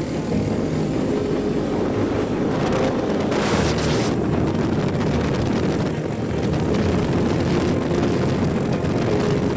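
Vehicle engine running steadily during a ride, with wind noise on the microphone and a brief burst of hiss a little over three seconds in.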